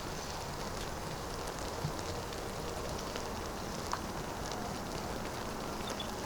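Steady background hiss with a few faint ticks scattered through it.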